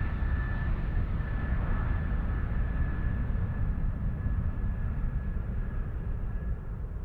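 Airliner noise from a plane crash sound effect: a steady low rumble with a faint high whine over it, easing slightly toward the end.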